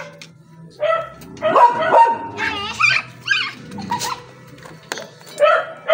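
Dogs barking and yelping in short repeated bursts.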